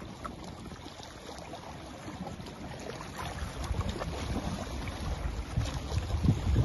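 Wind buffeting the microphone in uneven low gusts that grow stronger in the second half, over the faint wash of small lake waves lapping at a pebbly shore.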